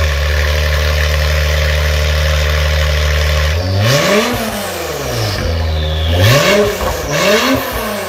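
2017 Acura NSX's twin-turbo V6 through an Armytrix valvetronic stainless exhaust, idling steadily, then revved three times in the second half, each rev rising and falling quickly.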